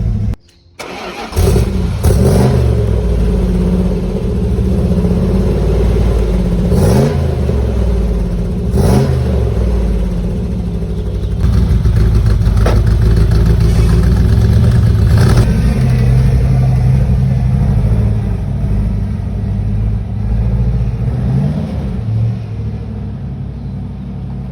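Dodge Challenger T/A's V8 engine running with a loud low exhaust rumble, revved in quick throttle blips about two, seven, nine and twenty-one seconds in. The sound cuts out for under a second near the start.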